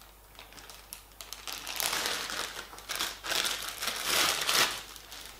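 Clear plastic bag crinkling and rustling as it is handled and opened to get a laser-level mount out. Quiet at first, it picks up after about a second and a half and is loudest in the second half.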